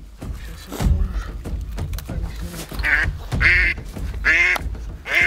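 A live decoy hen duck quacking: a run of about four loud quacks, each falling in pitch, starting about three seconds in, over a low rumble. A spring decoy hen's calling like this draws drakes in.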